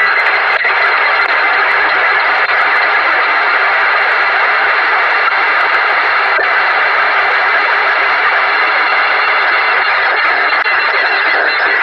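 Radio static: a steady hiss with a few faint clicks, and no tuning sweep or voice coming through.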